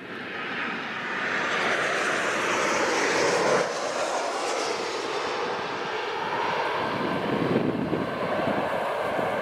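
Bombardier DHC-8-400 (Q400) turboprop at takeoff power, its Pratt & Whitney PW150A engines and propellers growing louder over the first two seconds and then running steadily loud.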